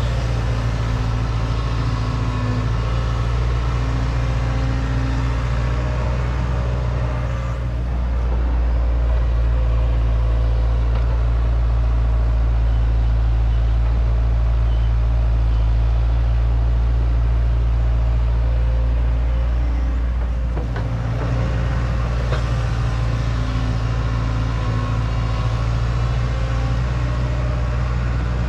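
Excavator's diesel engine running steadily. From about eight seconds in to about twenty-one seconds it grows louder with a deeper rumble, then settles back.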